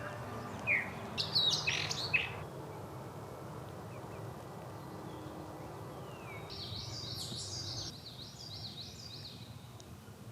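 Small birds calling in woodland: a few sharp chirps in the first two seconds, then a fast, high-pitched song of rapid slurred notes lasting about three seconds, over a steady low background rumble.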